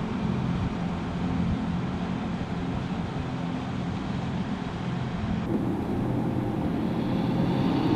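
A car driving: a steady low hum and road noise. About five and a half seconds in, the sound changes abruptly.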